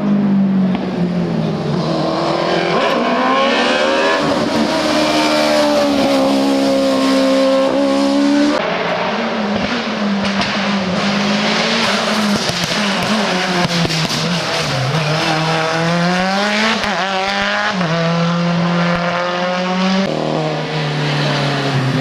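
Hill-climb race car engine running hard, its pitch rising under acceleration and dropping sharply at gear changes, then falling away and climbing again through the gears.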